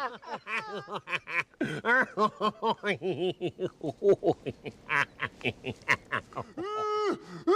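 Cartoon-style voice sound effect: fast, high-pitched chattering snickers, about five quick rising-and-falling syllables a second, with no words. Near the end it changes to a few longer held notes.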